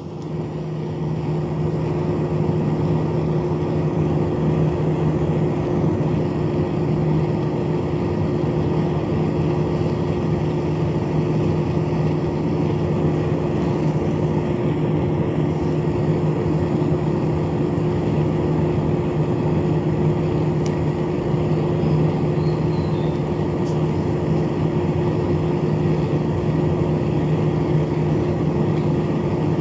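Air conditioner fan motor spinning up and then running at a steady speed: a constant two-toned hum over a rushing noise.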